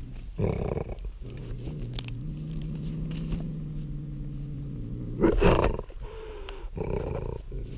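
A bobcat caught by a foreleg in a trap, growling low and steadily, broken by short loud snarls about half a second in, around five seconds in (the loudest), and again near the end.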